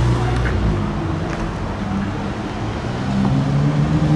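Ferrari 296 GTB's twin-turbo V6 idling, a low steady rumble. It grows louder about three seconds in.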